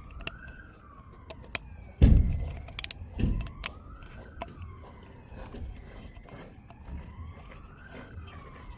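A faint siren wailing slowly up and down in the background. Clicks and a loud knock about two seconds in from parts being handled.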